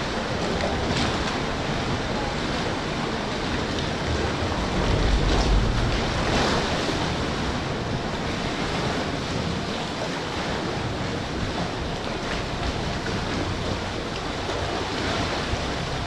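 Steady rush of sea water around a small boat, with wind on the microphone, swelling louder about five to six seconds in.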